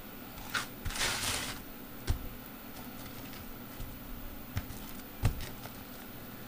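Pizza dough being handled on a floured, plastic-wrapped board: a brief rustle about a second in and a few soft knocks, the loudest about two seconds in and again past five seconds, over a steady low room hum.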